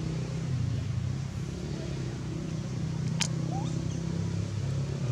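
Steady low hum, with a sharp click about three seconds in and a short rising squeak just after it.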